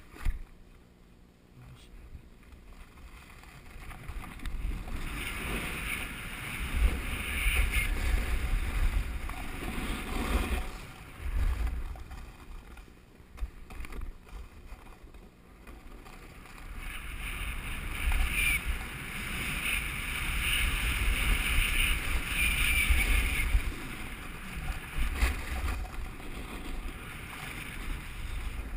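Snowboard sliding and scraping over snow, with wind rumbling on the microphone; the hiss swells and fades twice as speed changes. There is a sharp knock just after the start.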